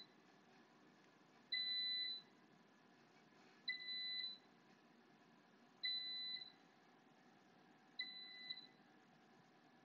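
Electronic beeps repeating about every two seconds, four in all. Each is a steady high tone lasting a little over half a second.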